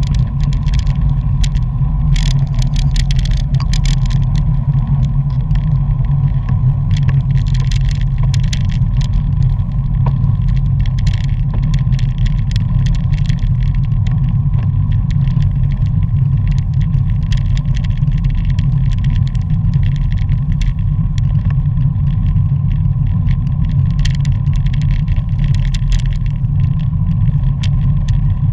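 Wind and road rumble on a bicycle-mounted action camera at racing speed: a loud, steady low rush, with many scattered sharp clicks and rattles over the road surface.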